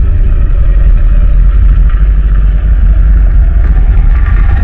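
Loud, steady low rumble throughout, with a faint higher hum over it.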